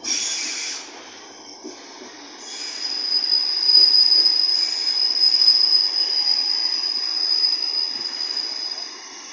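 Container freight train rolling past, its wheels giving a steady high-pitched squeal that sets in about two and a half seconds in and fades shortly before the end.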